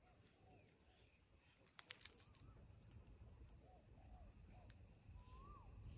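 Faint rural outdoor ambience: scattered short bird chirps and one longer rising-then-falling call about five seconds in, over a steady high-pitched insect drone, with a few light clicks about two seconds in.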